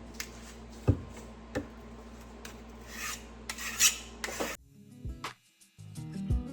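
A flat file scraping along the steel rails of a chainsaw guide bar, with a couple of strokes and a few sharp knocks, deburring the lip worn onto the bar's edges. The sound cuts off near the end and music starts.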